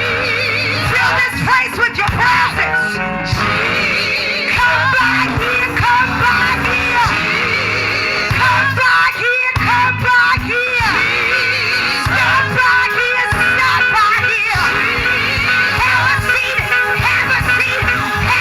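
Live gospel worship music: singing with vibrato over a band accompaniment, with some shouting from the congregation.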